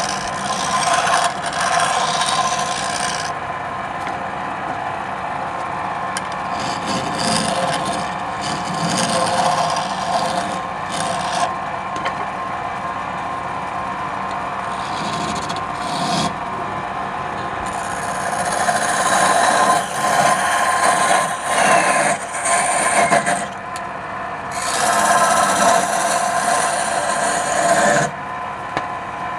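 Wood lathe running with a steady motor whine while a tool scrapes against the spinning wood. The scraping rises and falls, and is heaviest in the second half.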